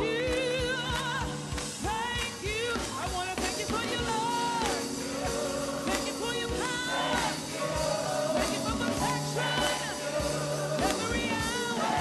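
Gospel choir singing with a lead vocalist on a microphone over a live band, with a steady drum beat and held chords underneath.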